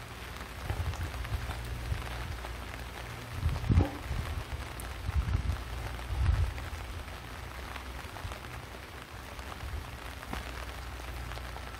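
Steady rain falling, with a few dull low thumps, the loudest about four seconds in.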